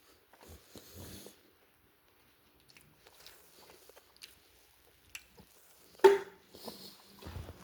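Close-up eating sounds: biting and chewing cold jalapeño pizza, with small wet mouth clicks and one sharp smack about six seconds in.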